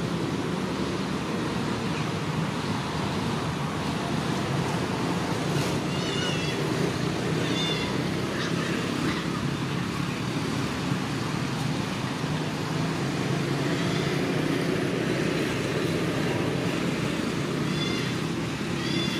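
Steady low outdoor background rumble, with short high-pitched chirping calls in small clusters about six and eight seconds in and again near the end.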